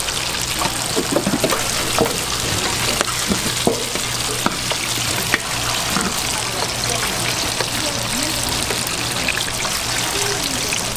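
Hot oil sizzling and crackling as battered Korean fritters (twigim) deep-fry, a steady hiss with many small pops, over a low hum.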